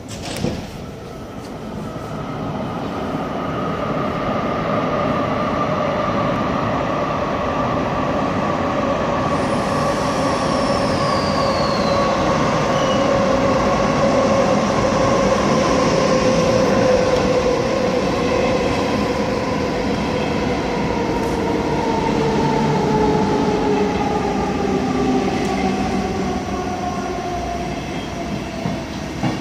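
SBB passenger train running into an underground station and slowing as it arrives. Its noise builds over the first few seconds, and a whining tone slowly falls in pitch as the train decelerates, with a brief higher squeal about ten seconds in.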